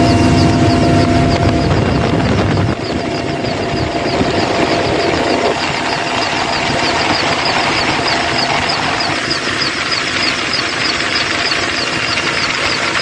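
Military helicopter's turbine engines and rotor running loud and steady, heard at the open cabin door while it hovers for a winch hoist, with a regular high pulsing over the constant noise. The deepest rumble drops a little about three seconds in.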